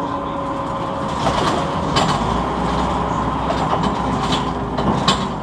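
Scania OmniCity city bus heard from inside the passenger cabin while under way: a steady rumble of engine and road with a faint whine. Sharp rattles or knocks from the bodywork come about two seconds in, again after four seconds, and once more near the end.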